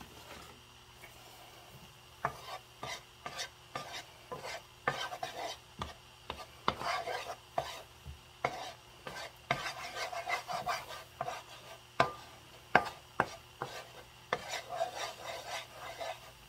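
Wooden spoon stirring minced garlic frying in oil in a nonstick frying pan: irregular scrapes and taps of the spoon against the pan, several a second, starting about two seconds in.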